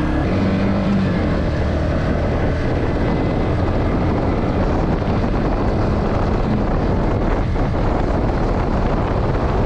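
Yamaha MT-15's single-cylinder engine running as the motorcycle rides along, mixed with steady wind noise on the microphone.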